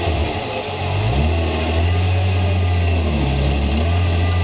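The engine of a red VR6-badged off-road trial buggy revving in bursts as it crawls over boulders. Its note dips, rises again about a second in, holds, dips once more around three seconds in, then climbs again near the end.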